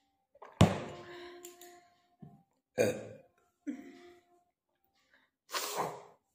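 A woman burping several times after a full meal, forcing the burps up on purpose. The first burp, just over half a second in, is the loudest and most sudden.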